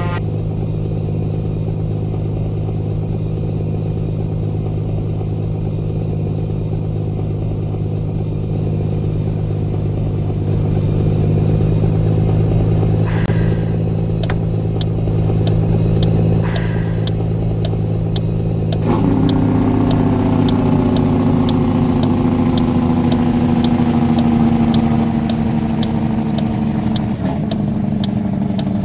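Truck engine running steadily. Two short bursts of noise come about 13 and 16 seconds in, and near 19 seconds the engine note changes abruptly as a rapid, regular ticking starts.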